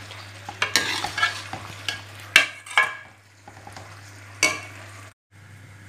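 Metal spatula stirring and scraping against a steel kadai of frying potatoes, radish pods and fenugreek leaves, with a light sizzle underneath. A few sharp scrapes stand out, the loudest about two and a half seconds in.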